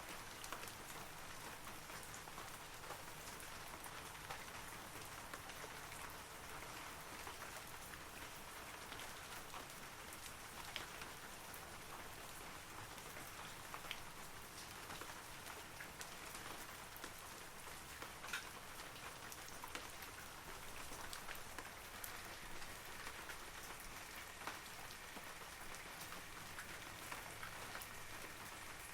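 Steady rain falling on forest trees: an even hiss with scattered individual drops ticking.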